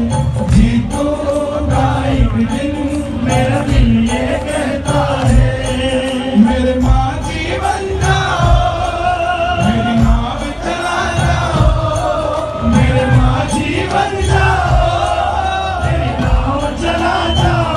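Hindu devotional song playing: chanting, choir-like vocals over a steady low drum beat.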